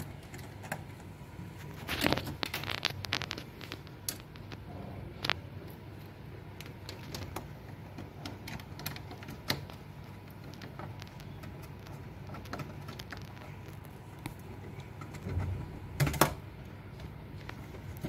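Scattered small clicks and taps of a screwdriver and a cable being worked into the terminals of a three-phase rotary cam switch on an electrical control panel door. There is a busy run of clicks about two seconds in and another short cluster near the end.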